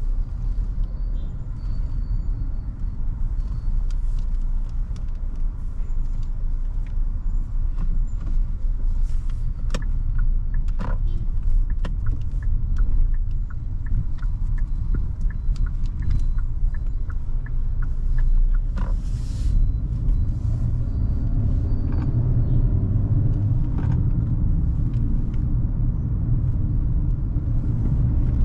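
Hyundai Creta 1.5-litre four-cylinder petrol engine and tyre noise while driving, a steady low rumble with scattered light knocks and clicks. The low rumble grows stronger about three quarters of the way in.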